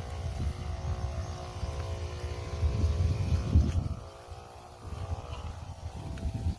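Wind buffeting the microphone as an uneven low rumble, with a steady droning hum of several even tones underneath that fades out near the end.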